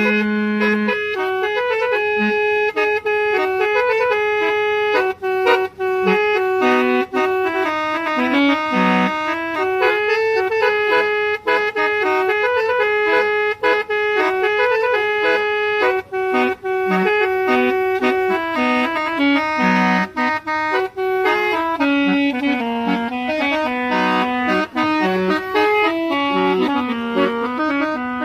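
Old-style musical horn playing a continuous tune: a reedy melody that changes note several times a second.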